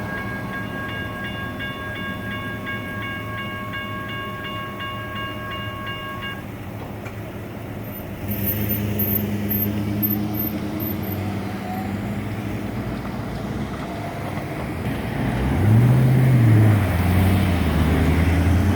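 Electronic railroad crossing bell ringing in a steady pulse, stopping about six seconds in. A low vehicle hum follows, with an engine note that rises and falls near the end.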